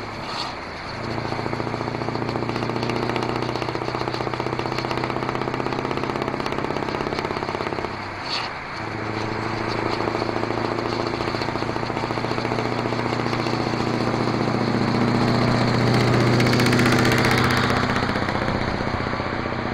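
Scania S650's V8 diesel engine running under way, a steady deep pulsing note. It dips and breaks off briefly twice, about half a second in and about eight and a half seconds in, and swells louder later on.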